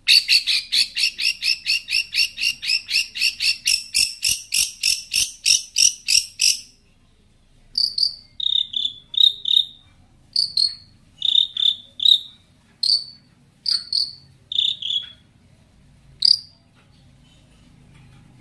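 Long-tailed shrike (cendet) song: a fast, even run of sharp high chirps, about six a second, rising slightly in pitch for about six seconds, then after a pause scattered sharp chirps in twos and threes.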